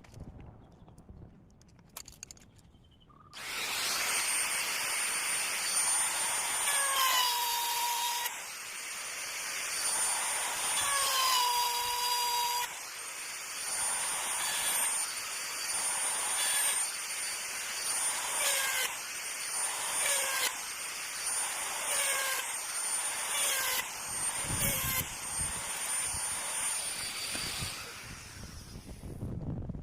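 Handheld electric power tool running on wood for about 25 seconds, starting a few seconds in. Its motor whine changes in short spells, and now and then its pitch sags as it comes under load.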